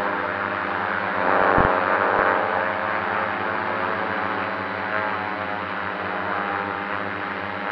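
FPV drone's electric motors and propellers whining steadily, swelling louder for about a second as the throttle comes up about one and a half seconds in.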